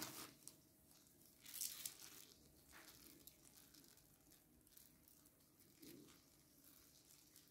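Faint crackling and tearing of crisp, flaky spinach börek pastry, in a few short bursts, the clearest about a second and a half in.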